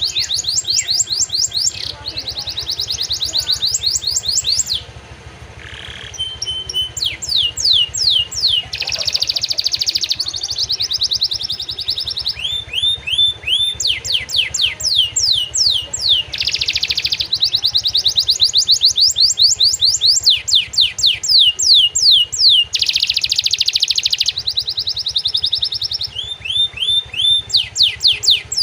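Domestic canary singing a long, fast song of rapid repeated downward-swept whistled notes alternating with buzzy trills, with a brief dip about five seconds in. The song is stuffed with phrases learned from prenjak and ciblek (prinias), which is why it is used as lure song to get other canaries singing.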